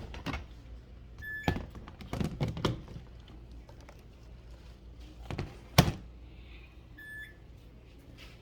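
Two short electronic beeps about six seconds apart, with several knocks and thuds of objects being handled in a small room; the loudest thud comes just before six seconds in.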